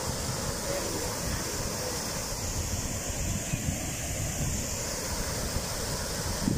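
Water pouring over a low weir into a river, a steady rushing noise, with wind buffeting the microphone in uneven low gusts.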